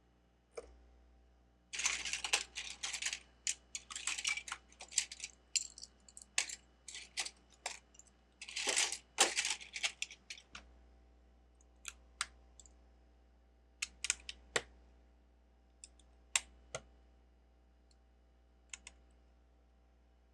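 Plastic Lego bricks clattering as a hand sifts through a pile of loose pieces, in two busy stretches, followed by scattered single clicks.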